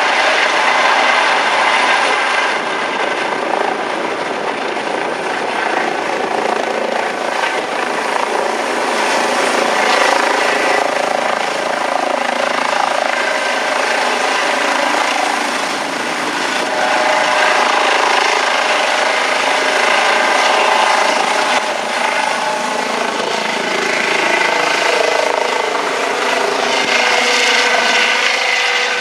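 Eurocopter EC135 air-ambulance helicopter lifting off from a hover and climbing away: a steady rush of rotor and turbine noise with a thin high whine on top, swelling and easing slightly as it climbs overhead.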